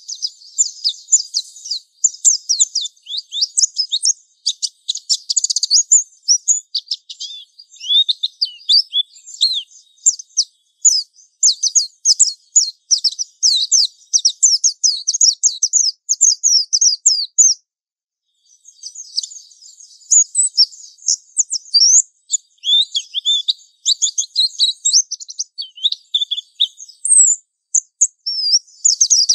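Japanese white-eye (pleci) singing a long 'ngalas' song: rapid, high-pitched twittering and warbling notes run together in a continuous stream, with one short break a little past halfway.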